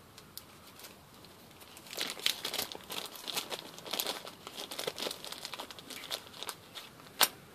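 Small clear plastic zip bag crinkling as it is handled and worked open, a dense run of crackles starting about two seconds in. A single sharp click near the end.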